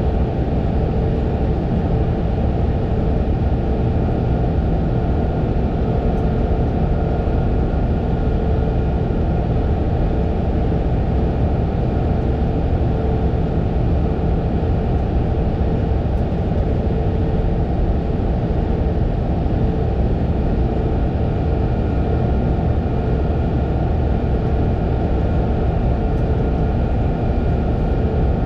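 Fendt 936 Vario tractor's six-cylinder diesel engine running steadily under a constant load, with a faint steady high tone above the low engine note.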